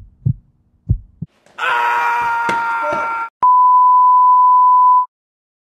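Test-tone beep of a 'no signal' colour-bar screen: one steady, high, pure tone held for about a second and a half, then cut off sharply. Just before it comes a burst of static-like noise with steady tones in it, and at the start a few soft thumps.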